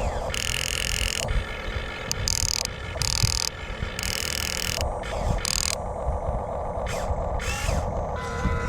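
Small electric motors and gearboxes of radio-controlled construction models whirring in stop-start bursts over a constant low rumble, the high whine cutting in and out several times.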